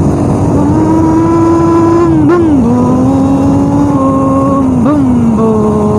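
Motorcycle engine running hard under acceleration, a loud steady pitched note that drops twice, about two and a half and five seconds in, as the rider shifts up a gear.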